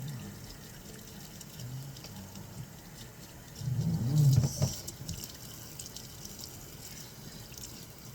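Water dripping and trickling during a cat's bath, with faint handling noises. About four seconds in, a short, louder, low, moaning voice is heard.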